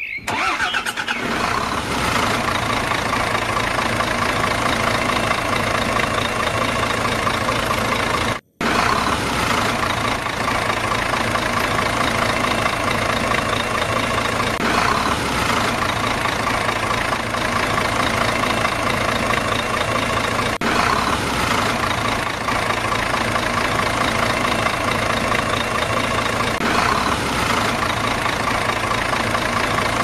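Vehicle engine sound effect, running steadily at idle with a low, even hum. It cuts out for a moment about eight and a half seconds in.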